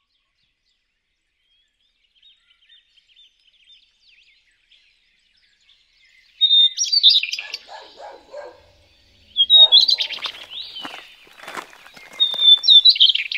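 Songbird singing: a loud phrase repeated three times, each opening with a high held whistle that breaks into a quick jumble of notes, after a few seconds of faint, sparse chirping.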